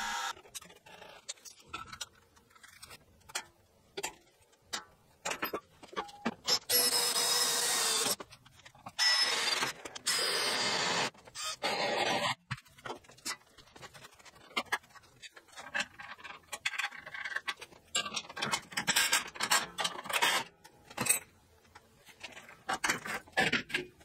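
Workshop metalworking sounds cut together in short pieces: scattered clicks and knocks, and several bursts of a power tool running for a second or two each, the longest a few seconds in.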